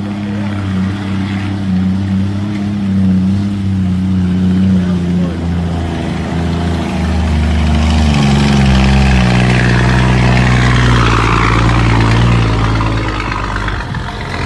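Scania truck's diesel engine rumbling while hauling a load. Its pitch steps down between about six and eight seconds in, then it runs louder and steady, loudest over the following few seconds.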